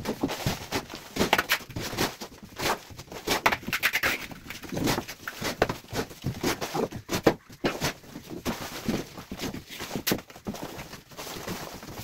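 Steel plastering trowels and floats scraping and slapping wet cement mortar onto a concrete ceiling, in quick, irregular strokes.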